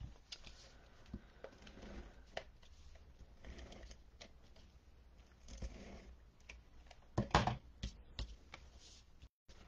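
Soft rustling and light clicks of cardstock being handled and pressed down by hand against a tabletop, with a short cluster of louder clicks about seven seconds in.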